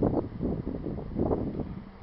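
Wind buffeting the microphone in low gusts, over the faint steady hum of a honey bee swarm.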